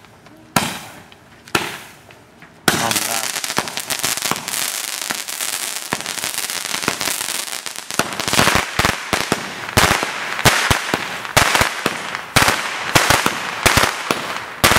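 Consumer firework going off: two sharp pops, then from nearly three seconds in a continuous crackling hiss of sparks. Many quick little pops come thicker in the second half.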